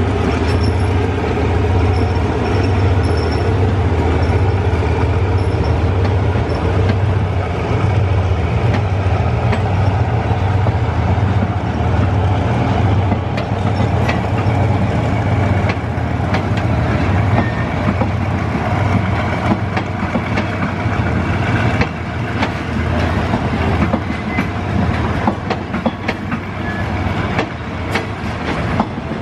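A passenger train of a diesel-electric locomotive and coaches rolling past, the wheels clicking over rail joints. The locomotive's low pulsing rumble is strongest for the first twenty seconds or so, then drops away, leaving mostly the clatter of the coach wheels.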